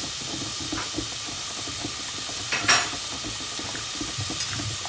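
Chopped onion, carrot and garlic sizzling steadily in hot oil in a stainless steel pot, with one short sharp sound about two and a half seconds in.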